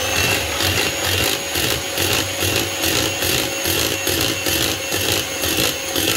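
Electric hand mixer running at a steady high speed, its beaters whisking eggs and sugar into a foamy batter in a plastic bowl. It has just spun up, with a steady whine over the churning of the beaters.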